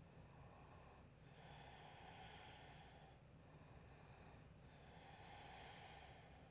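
Faint, slow breathing over near silence: two long breaths, each lasting about two seconds.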